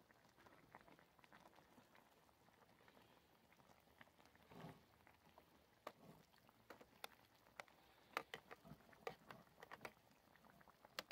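Beef ribs braising in red wine in a mess tin on a camping gas stove, simmering faintly with small pops and ticks, which come more often in the second half.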